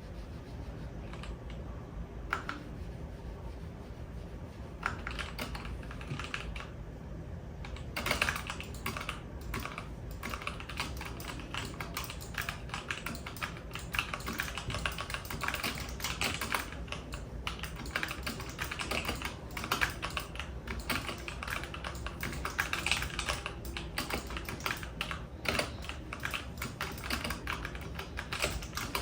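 Typing on a computer keyboard: a few scattered keystrokes at first, then steady, fast typing from about eight seconds in.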